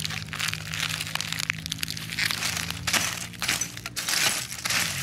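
Broken phone screens and plastic scraps crunching and crackling as a stick rakes through a heap of discarded phones. The scrapes and crackles come irregularly, one after another.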